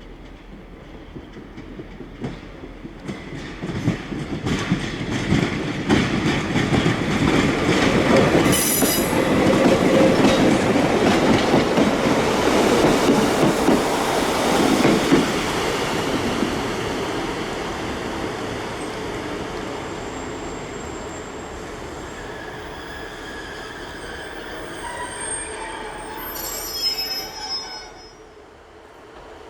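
A GWR Class 143 Pacer train passes close by, its wheels clattering over the rail joints as it grows loud and then slowly fades. Near the end the wheels give a brief high squeal.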